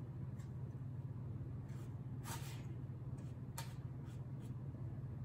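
Faint scrapes and taps of a child handling a glittered paper-plate craft, about half a dozen soft strokes, over a steady low hum.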